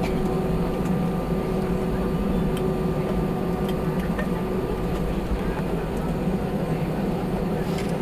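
Cabin noise of an Airbus A320 taxiing with its engines at idle: a steady drone carrying a few faint held engine tones.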